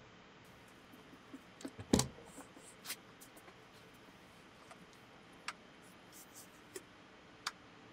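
A few light clicks and knocks from a mesh watch-parts cleaning basket and its plastic holder being handled and fitted into a watch-cleaning machine. The loudest knock comes about two seconds in, and scattered small clicks follow.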